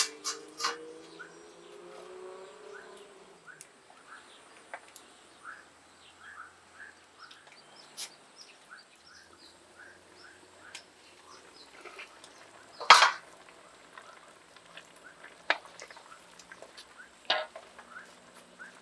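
Small birds chirping repeatedly, short high chirps in quick series, with a few sharp knocks, the loudest about two-thirds of the way through.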